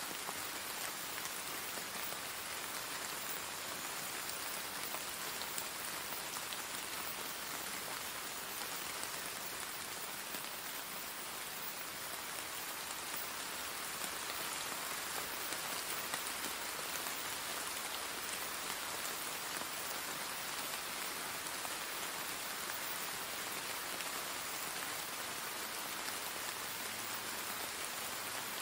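Steady rain falling, an even hiss of raindrops that does not change.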